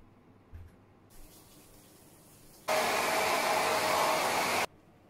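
Hair dryer blowing for about two seconds, starting and stopping abruptly, with a steady hiss of air and a faint hum from its motor.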